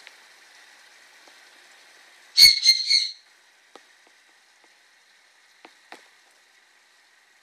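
A bird squawking: three quick, loud calls about two and a half seconds in, over a faint steady hiss, followed by a few soft clicks.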